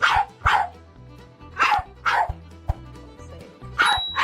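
Dog barking in pairs of two quick barks, three pairs in a row, each bark falling in pitch. Background music runs underneath.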